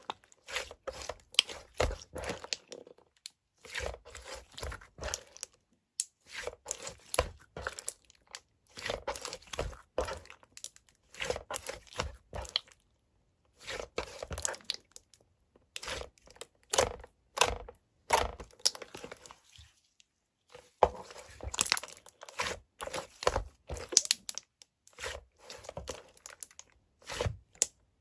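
Close-up crunching and crinkling sounds in short bursts of a second or two, with brief pauses between them.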